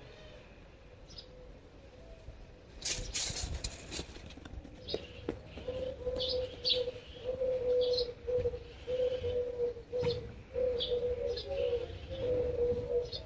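Doves cooing over and over in a low, even tone, with small birds chirping briefly above them. A short rush of noise comes about three seconds in.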